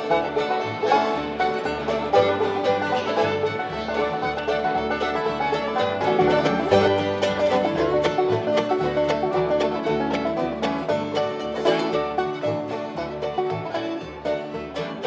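Bluegrass string-band music with banjo and mandolin over a plucked upright-bass line that keeps a steady beat.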